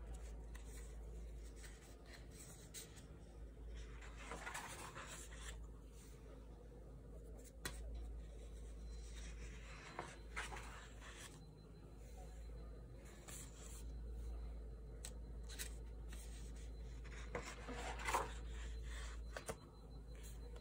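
Sketchbook pages being handled and turned: paper rustling and sliding in three main stretches, with a few soft clicks. A steady low hum runs underneath.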